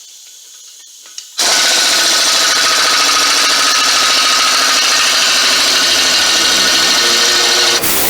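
A power tool starts suddenly about a second and a half in and runs steadily and loudly for about six seconds, driving the puller's nut to draw the front wheel bearing out of its housing.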